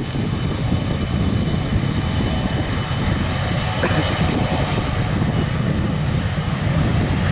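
Engines of an Embraer E175 regional jet (twin GE CF34 turbofans): a loud, steady jet noise that is heaviest in the low end, with a faint high whine over it.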